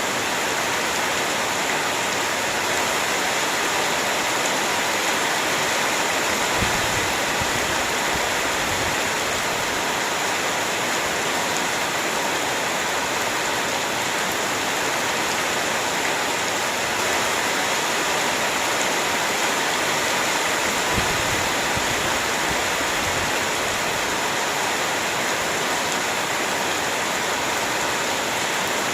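Heavy rain falling steadily, a dense even hiss of drops. Twice a brief low thud shows through, about a quarter of the way in and again about two-thirds in.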